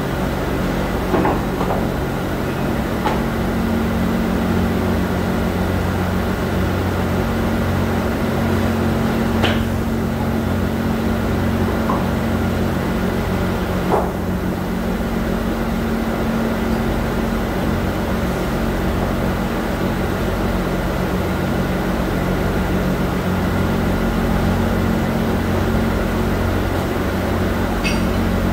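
Steady hum of factory machinery, with low even tones, and a few short knocks scattered through.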